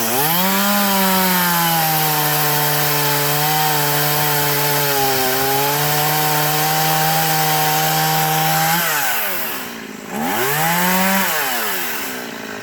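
Two-stroke chainsaw running at high revs and cutting wood, its pitch held steady under load with a slight sag midway. About nine seconds in it drops back toward idle, revs up briefly once more, and then falls away again near the end.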